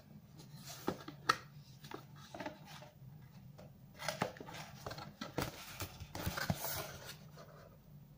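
Cardboard set-top-box packaging being handled and opened by hand: scattered taps, scrapes and rustles of the box and its flaps, busiest about four to seven seconds in, over a faint steady low hum.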